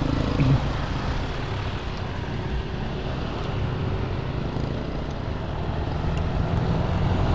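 Motorcycle engine running as the bike moves off from a stop and rides along, with wind rushing over the microphone.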